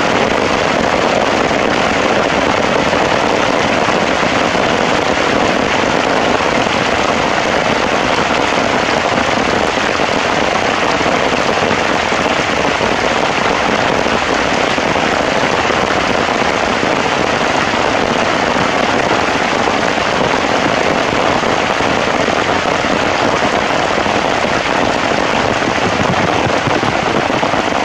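Heavy rain falling in a steady, dense patter, loud and unbroken.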